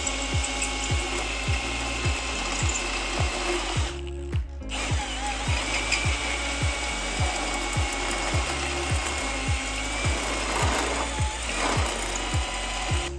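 Milwaukee M18 cordless drill turning a carbide hole saw as it cuts through the wall of a 4-inch stainless steel pipe elbow. The drilling has background music with a steady beat of about two thumps a second under it, and there is a brief break in the sound about four seconds in.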